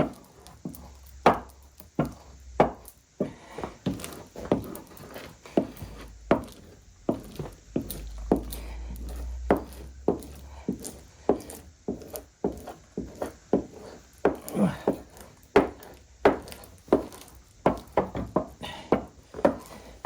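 Veneer hammer working hide-glued crotch mahogany veneer down onto a mahogany panel: a steady series of short knocks and scrapes of the hammer on the wood, about one to two a second.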